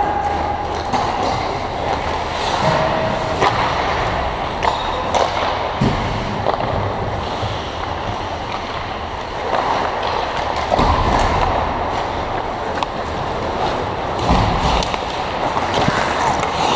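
Ice hockey play on a rink: a steady hiss and rumble of skates on the ice, with scattered sharp clacks of sticks and puck.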